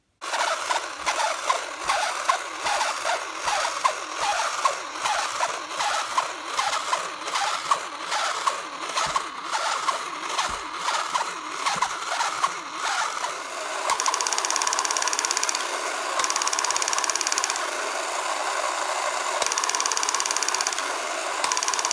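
Electric motor and gears of a 1960s Alps battery-operated Fighting Bull tin toy running. For the first half there is a rhythmic clatter of roughly two beats a second as the toy moves. About two-thirds through it changes to a steadier mechanical buzz, with a high whirring hiss that comes and goes every second or two.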